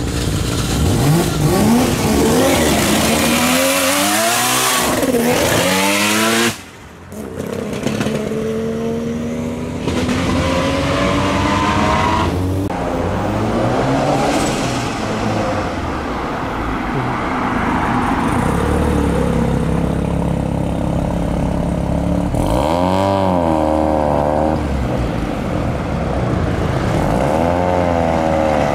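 Mazda rotary engines revving hard and accelerating, the revs sweeping up and down again and again. The sound drops away briefly about a quarter of the way through, then more revving follows, ending with a third-generation RX-7 pulling away.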